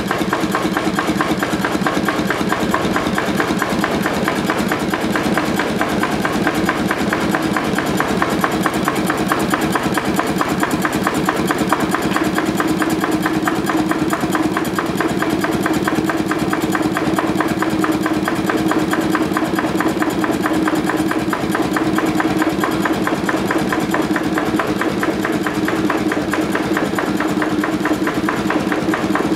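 Slavia stationary combustion engine running steadily with a rapid, even beat.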